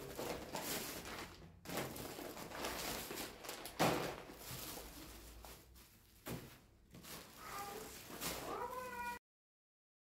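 Plastic carrier bags and clear bags of dry rice and chickpeas rustling and crinkling as they are handled and lifted out, with the loudest crackle about four seconds in. Near the end come two short pitched cries with a wavering pitch, and then all sound cuts off suddenly.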